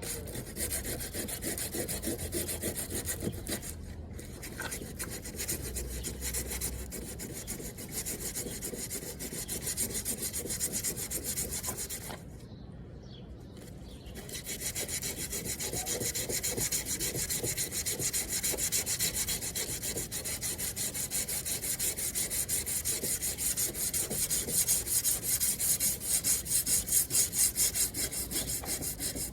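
Sanding on a car's rear fender: abrasive paper rubbing steadily back and forth over the body panel, with a short break about halfway through.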